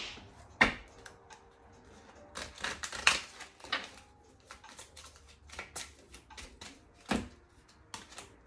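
A deck of tarot cards being shuffled and handled on a tabletop: irregular flicks, slaps and taps of card against card and table, with two sharper knocks, one about half a second in and one near the end.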